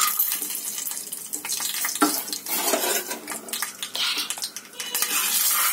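Cashews and raisins dropping into hot ghee in a metal pressure-cooker pan and sizzling as they fry, with a clatter as they land at the start and a few later clicks of metal.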